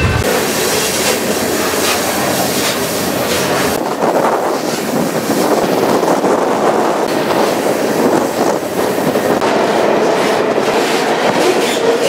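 A freight train running on the rails, heard from aboard one of its cars: a steady, loud rumble and rattle of wheels, with the sound shifting abruptly about four seconds in.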